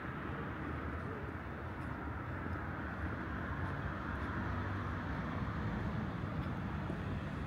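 Steady outdoor city hum of distant traffic, a constant low rumble and hiss with no single vehicle or event standing out.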